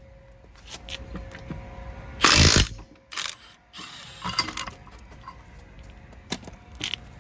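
Cordless impact wrench (Milwaukee Fuel) loosening a wheel's lug bolts: a loud burst of about half a second some two seconds in, then shorter bursts, with clicks and clatter of the tool being handled.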